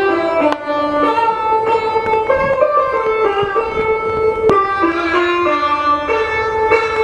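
Instrumental music with a melody of stacked pitched notes, played through a hi-fi system of Celestion Ditton 44 loudspeakers and a Bang & Olufsen Beolab 2 active subwoofer and heard in the room. A couple of sharp strikes come about half a second and four and a half seconds in.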